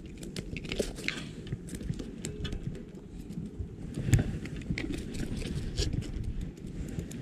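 Irregular light taps and clicks of a small horse mackerel flapping on concrete while being handled with a fish-grip tool, over a low rumble, with one louder knock about four seconds in.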